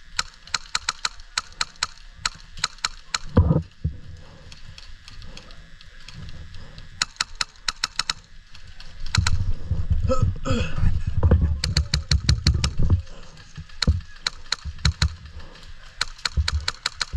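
Airsoft guns firing in quick runs of sharp shots, several a second, with a louder low rumble from about nine to thirteen seconds in.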